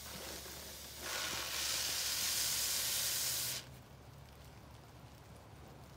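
Aerosol wasp-killer spray jetting from the can: a steady hiss that gets much louder about a second in and cuts off sharply after about three and a half seconds.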